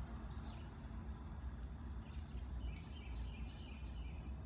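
Outdoor ambience: a steady high insect drone, with faint scattered bird chirps and a low background rumble. There is one sharp tick about half a second in.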